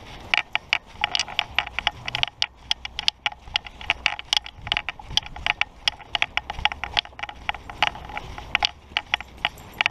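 Brisk footsteps crunching over dry, matted grass, with many quick crackles from the grass and the handler's clothing rubbing near the microphone, over a low rumble of wind on the microphone.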